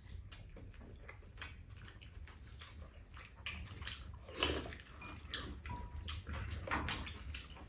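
Quiet eating sounds of two people eating fried rice: chewing and wet mouth noises, with many small clicks and a couple of louder slurps or smacks about four and a half and seven seconds in.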